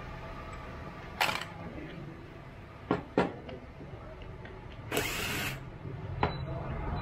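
Cordless drill-driver run in two short spurts, briefly about a second in and for about half a second near five seconds, driving the screws of an angle grinder's gear head, with a few sharp clicks from the tool and parts being handled.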